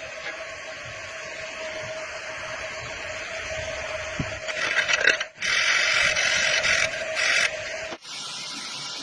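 Electric arc welding on thin square steel pipe: a steady hiss over a constant whining tone, with two louder stretches of arc crackle and hiss about halfway through. The sound breaks off sharply twice, once just past halfway and again near the end.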